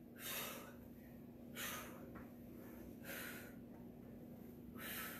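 A woman's faint, sharp exhalations, four of them about one and a half seconds apart, breathing out with each rep of starfish crunches.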